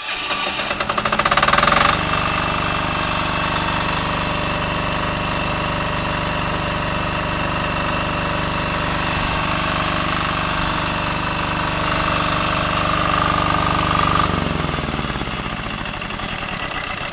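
Hyundai 10 hp single-cylinder air-cooled diesel generator engine running, loudest in the first couple of seconds and then holding a steady run. About fourteen seconds in, its pitch drops away.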